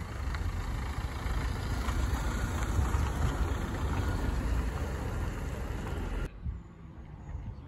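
Ford Transit van's diesel engine running at low speed as the van drives past close by. The sound cuts off abruptly about six seconds in, leaving a much quieter outdoor background.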